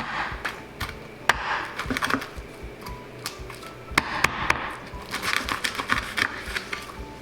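Kitchen knife clicking and scraping on a cutting board as a fish is cut and skinned: irregular sharp taps, several a second, with short rasping scrapes between them.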